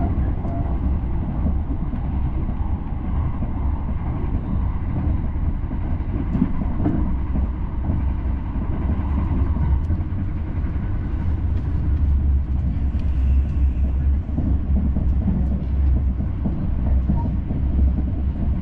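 Passenger train running at speed, heard from inside the car: a steady low rumble of the running gear on the track.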